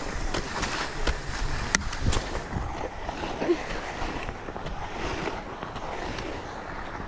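Skis sliding and scraping over firm, tracked snow, a steady hiss mixed with wind noise on the microphone, with a sharp click a little under two seconds in.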